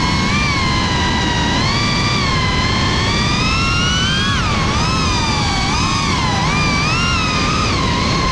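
Motors and propellers of a GEPRC CineLog35 FPV drone whining in flight, the pitch rising and falling with the throttle, over a steady rushing noise.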